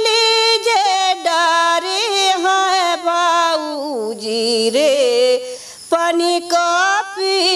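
A woman singing a Rana Tharu teej folk song solo, with no instruments, in long held notes with wavering ornaments; a brief pause for breath comes about three-quarters of the way through.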